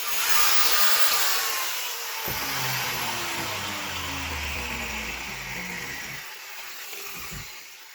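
A power tool running with a steady hiss and a falling whine, slowly getting quieter toward the end.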